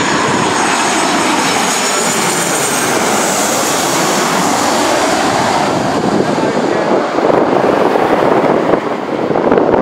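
Jet engines of a Boeing 737 Next Generation (CFM56-7B turbofans) passing low overhead on final approach, loud and steady, with a high whine and other tones that slide down in pitch as the airliner goes by.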